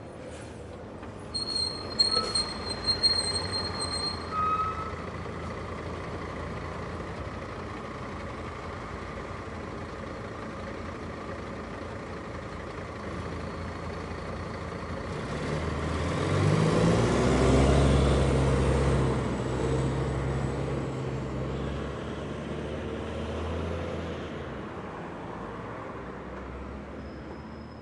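A bus driving past: a few brief high squeals and knocks in the first seconds, then its engine rumble swells, rising in pitch as it approaches, loudest a little past halfway, and fades away.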